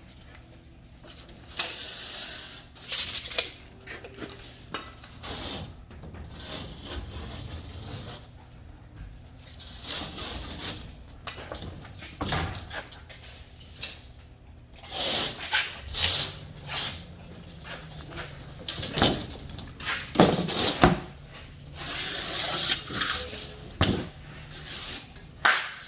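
Irregular knocks, bumps and short scraping noises from drywall work, with sheets and tools being handled.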